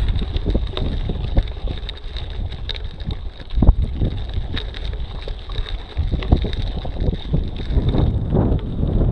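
Wind buffeting the microphone of a camera mounted on a mountain bike riding up a gravel road, with frequent knocks and rattles as the tyres and frame go over loose stones; the sharpest knock comes a little past the middle.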